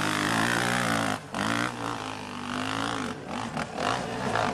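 Motocross bike engine revving hard, its pitch climbing and falling as the throttle is worked, with a short cut in the throttle a little over a second in.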